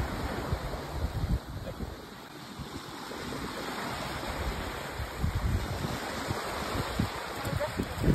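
Wind buffeting the microphone in uneven low gusts over the steady wash of small waves on a beach.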